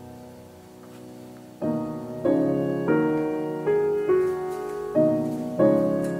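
Background piano music: a chord dies away, then from about a second and a half in a new note or chord is struck roughly every half second.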